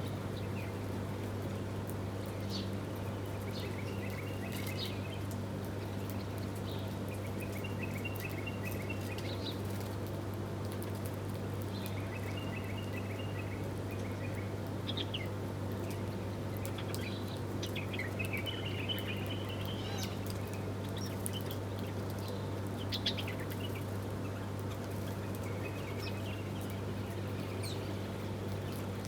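Small birds chirping at intervals, with short sharp calls and several quick chattering trills, over a steady low hum.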